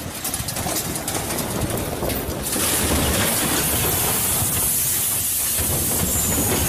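Rockslide: boulders tumbling down a slope, rumbling and clattering, turning about two and a half seconds in into a loud, steady rushing hiss.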